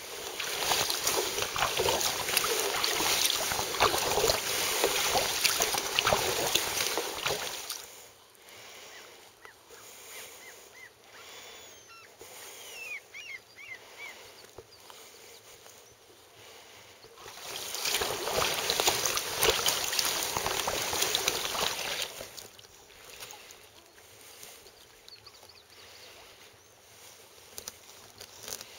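Water rushing and splashing against a sea kayak's hull as it runs under sail, in two loud spells of several seconds each: one at the start and one about two-thirds of the way through. Between them the water is much quieter.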